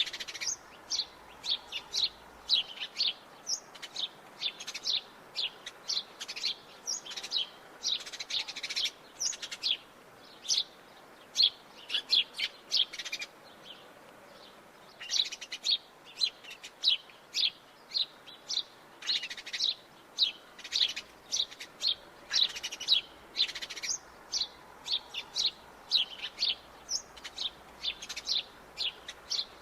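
House sparrows chirping in a quick, busy run of short chirps, with a pause of a second or so about halfway through.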